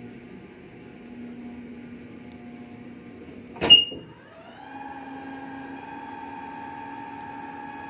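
Ship's watertight door: a loud sharp clack about three and a half seconds in, then the door's hydraulic pump motor spins up with a rising whine and settles into a steady whine.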